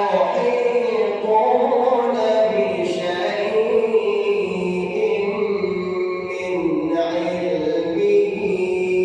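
A man chanting the Quran in the melodic mujawwad style, drawing out long sung vowels whose pitch bends slowly up and down.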